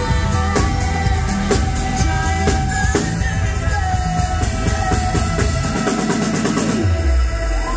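A live band plays a pop-rock song: a steady drum beat of about two hits a second, heavy bass, keyboards and a female lead singer. The bass and drums drop away about six seconds in as the song winds down to its end.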